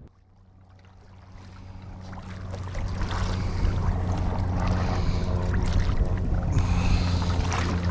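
Fishing reel's drag buzzing steadily as line is pulled off, building over the first few seconds and then holding: a big fish, which the angler takes for a shark, has taken the live bonito bait and is running.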